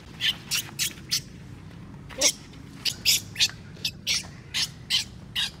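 Baby macaque crying in a string of short, high-pitched squeals, two or three a second, with a brief pause about a second in.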